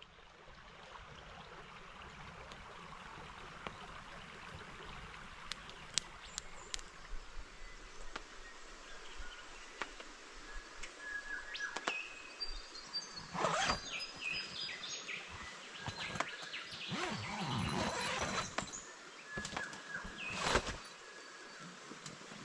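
Outdoor bush ambience with birds calling: short chirps and whistled notes from about halfway through over a steady faint hiss, with a few louder, harsher bursts in the second half.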